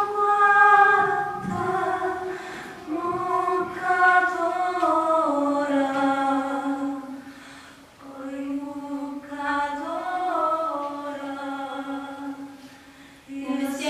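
Women's voices singing unaccompanied, a cappella, in slow phrases of held notes, with a short break about eight seconds in.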